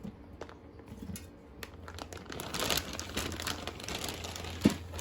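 Packaging crinkling and rustling as breaded chicken tenders are handled, with scattered light clicks and one sharp knock near the end.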